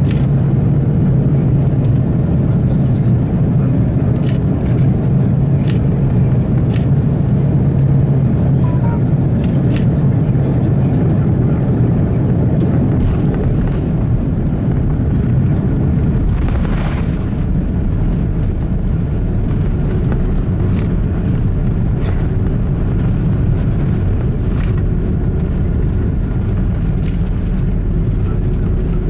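Cabin rumble of an Airbus A330-300 rolling on the ground, heard from a window seat: a steady low roar with light knocks every second or few. About two-thirds through comes a brief louder rush, and the rumble then settles a little quieter.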